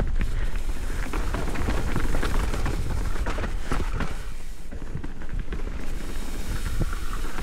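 Trek Slash 8 full-suspension mountain bike rolling fast down a loose gravel-and-dirt trail: tyres crunching over stones with constant small rattles and knocks from the bike, over a steady low rumble.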